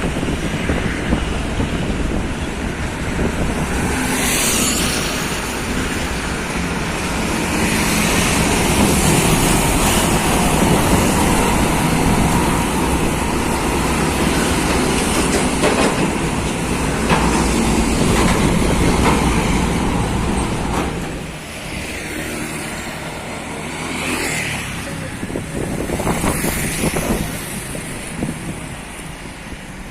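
Heavy diesel truck engines running amid passing traffic, with a few short hisses about four seconds in and again near the end.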